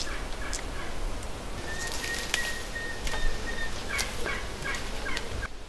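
Domestic turkey gobbling: a quick run of short falling notes about four seconds in, after a held thin note. Light clicks and rustles of flower heads being picked by hand run underneath.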